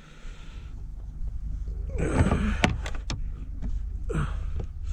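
Handling noise in a kayak: a rustling burst with several sharp knocks about two seconds in, over a steady low wind rumble on the microphone.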